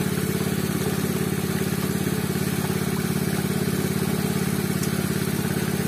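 Robin small petrol engine running steadily at a constant speed, driving the pump that feeds wash water into the pool through a pipe.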